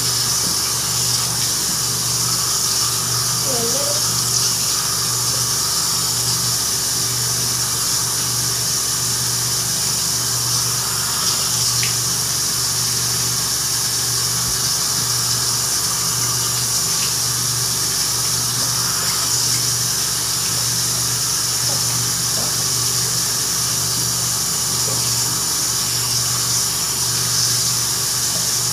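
Water running steadily from a tap into a bathroom sink as a rabbit is washed, with a steady low hum underneath.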